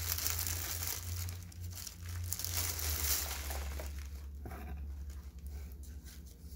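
Thin clear plastic sleeve crinkling as it is pulled and crumpled off a small potted plant. The rustling is dense for about the first three seconds, then fades to light handling.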